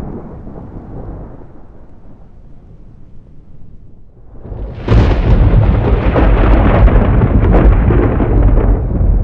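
Thunder from a lightning strike: a low rumble at first, then a sudden loud crack about five seconds in that rolls on as crackling rumble.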